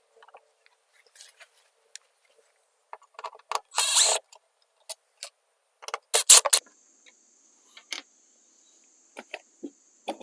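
Handling noises at the Jeep's turn signal housing: scattered light clicks and rattles of hands and tools, a louder scraping rustle about four seconds in, and a quick run of sharp clicks just after six seconds.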